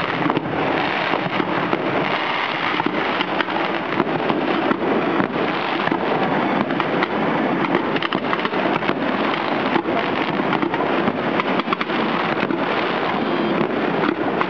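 Fireworks display in full barrage: a dense, unbroken run of overlapping bangs and crackling from bursting shells, many reports a second with no pause.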